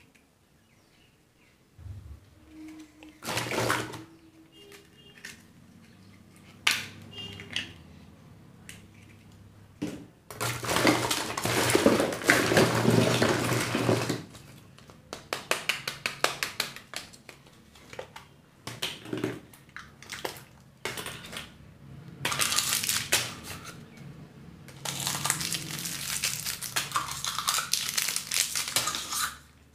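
Wrappers of surprise eggs and candies crinkling and rustling in bursts as they are torn and unwrapped by hand, with short clicks of plastic between. The longest spells of crinkling come about a third of the way in and again near the end.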